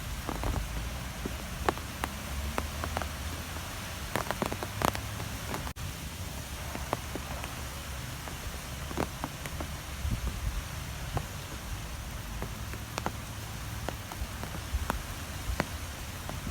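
Strong wind blowing steadily with a low rumble, with many scattered light ticks and taps.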